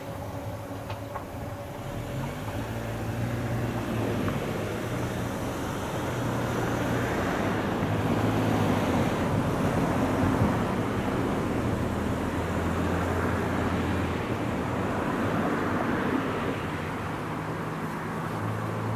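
Rumble of a vehicle passing. It grows louder over several seconds, is loudest about halfway through, then slowly fades, with a low steady hum under a noisy hiss.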